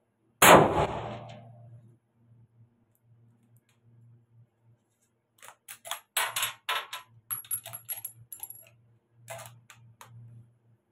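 A single shot from a .303 British Lee-Enfield bolt-action rifle, fired inside a shooting shed, its report dying away over about a second and a half. Some five seconds later comes a run of sharp metallic clicks and clacks as the bolt is worked to eject the spent case, with a brief light metallic ringing in the middle.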